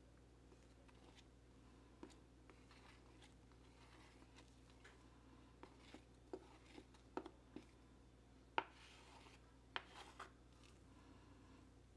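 Metal spoon stirring thick cake batter in a bowl: faint scraping with scattered light clicks of the spoon against the bowl, the loudest click a little past the middle.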